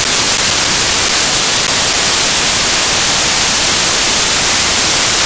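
Loud, steady static hiss, even from the lowest to the highest pitches, with nothing else heard through it: the audio track has turned to pure noise.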